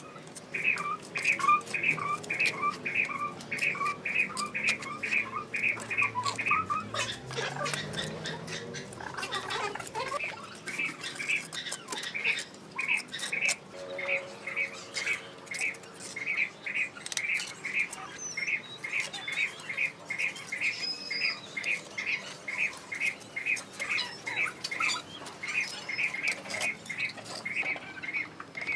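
A bird calling one short squeaky note over and over, about two or three times a second at a steady pace, with scattered taps and scrapes of a trowel and bricks being laid in mortar.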